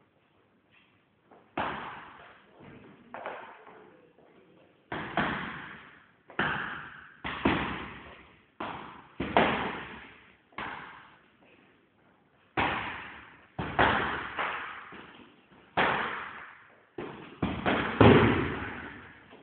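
Punches and kicks landing on a hanging heavy punching bag: a series of irregular thuds about a second apart, starting about a second and a half in. Each hit echoes in the room, and the loudest hits come near the end.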